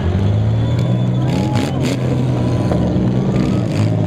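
Several six-cylinder demolition-derby car engines running and revving, rising and falling in pitch. A couple of short bangs, around one and a half seconds in and again near the end, are typical of car-body impacts.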